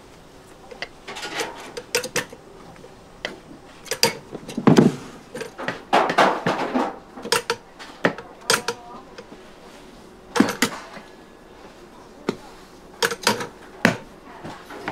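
Kitchen work clatter: a dozen or so sharp knocks and clicks of utensils and equipment at irregular intervals.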